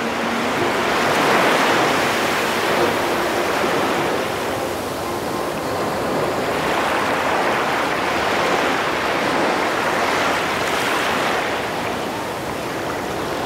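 Sea surf washing onto a beach: a continuous rushing noise that swells and eases every few seconds as the waves come in.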